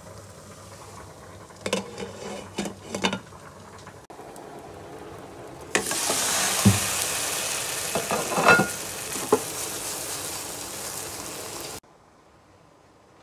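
Egg, zucchini and carrot omelette frying in a non-stick pan: a quieter sizzle with a few quick scrapes and taps of the spatula against the pan, then, once the omelette has been flipped, a sudden loud steady sizzle about six seconds in, with a few knocks of the spatula. The sizzle cuts off abruptly near the end.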